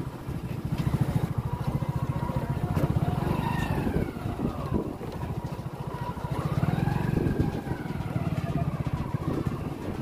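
Motorcycle engine running at low revs, with a rapid, even beat.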